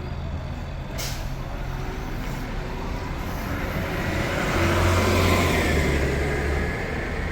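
Road traffic: a heavy vehicle drives past, its engine hum and tyre noise swelling to a peak about five seconds in and then easing off. There is a sharp click about a second in.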